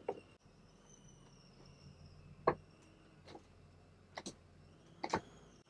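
Inside a motorhome cab rolling slowly, a quiet background with scattered light clicks and knocks, about seven of them at uneven intervals, the loudest about two and a half seconds in. A faint high whine falls gently in pitch over the first couple of seconds.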